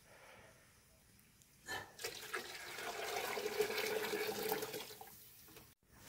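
Running water, starting about two seconds in and fading out about a second before the end.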